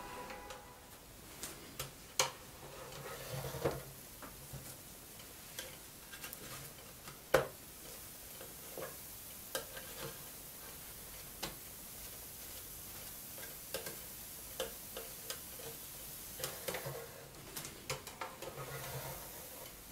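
Handling of a Tefal electric waffle maker and a plate of waffles: scattered light clicks and knocks from the lid and the waffles being moved, two sharper knocks about two and seven seconds in and a run of small clicks near the end, over a faint hiss.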